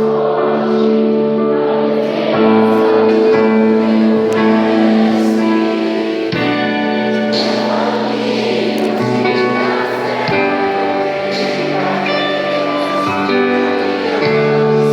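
Christian worship music: held chords that change every few seconds, with singing voices over them.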